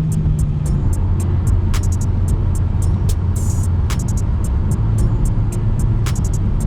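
Audi TT 1.8T turbo four-cylinder engine running steadily while misfiring, the misfire caused by one fuel injector not fully seated. Music with a regular ticking beat plays over it.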